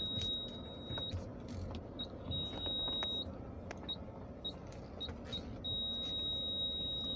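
Cabin noise of a Toyota Camry driving slowly over a rough road: a steady low rumble of tyres and suspension with small knocks and rattles. A high electronic beep comes on and off, sometimes held for about a second, sometimes in short blips. No clunk from the moon roof is heard, a sign that the fix has worked.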